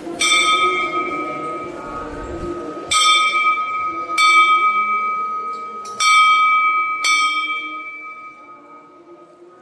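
A temple bell struck about five times at uneven intervals, each strike ringing on with a steady, clear tone that slowly fades away after the last one.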